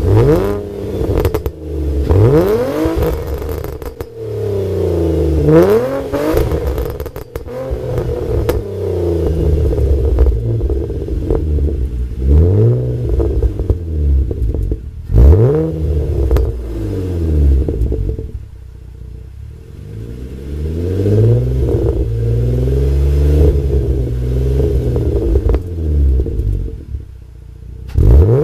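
Nissan Altima SE-R's 3.5-litre V6 being free-revved while parked, heard from behind its dual exhaust: repeated quick blips that rise sharply and fall back, with the engine settling between them.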